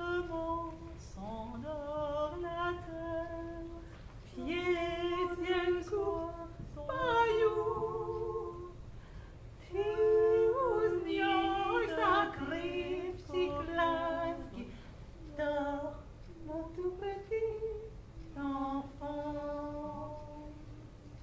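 A woman singing a slow, unaccompanied melody in phrases of long held notes.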